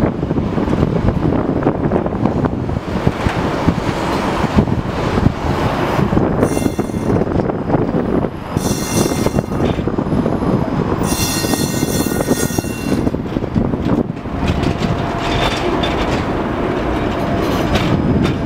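71-623.02 tram running along the rails with a steady rumble, and three bursts of high-pitched wheel squeal about six, eight and a half and eleven seconds in.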